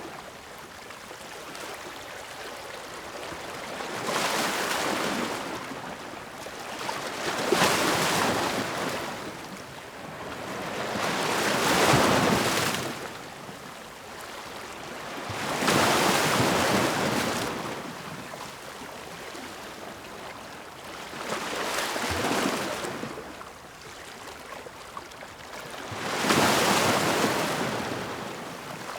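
Ocean waves breaking and washing up on the shore, each surge of surf swelling and fading every few seconds.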